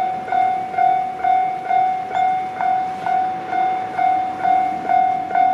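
Japanese railway level-crossing warning bell ringing, a single repeated ding about twice a second.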